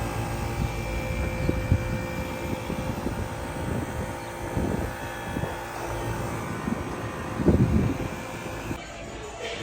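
Commercial HVAC unit running with a steady mechanical hum made of several held tones, while gusts of wind buffet the microphone with low rumbles.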